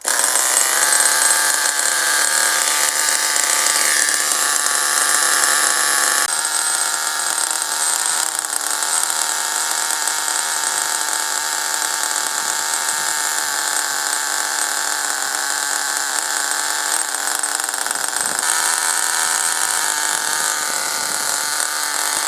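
Small glow-fuel nitro RC car engine running steadily with its low-speed needle leaned out, which makes it run hotter. Its tone changes about six seconds in and again near eighteen seconds.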